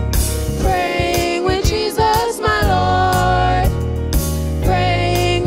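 Gospel music: young voices singing a children's gospel chorus over a backing track with steady bass and drums.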